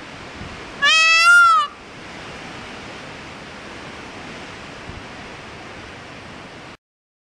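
Indian peafowl (peacock) giving one loud call about a second in, its pitch rising and then falling. A steady outdoor hiss follows and cuts off suddenly near the end.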